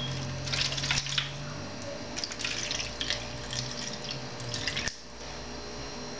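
Water poured from a plastic pitcher into an aluminium foil pan over a raw steak, splashing in several spurts for about four seconds, with a sharp tick about five seconds in.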